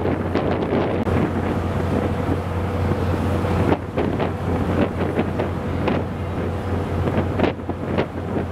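Wind buffeting the microphone on a ferry's open deck in irregular gusts, over the steady low drone of the ship's engines and the rush of the sea.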